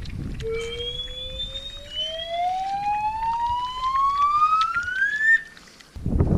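A single smooth tone rising steadily in pitch for about five seconds, with fainter higher tones climbing alongside it, like an editing riser effect. It stops abruptly near the end. Wind rumbles on the microphone underneath.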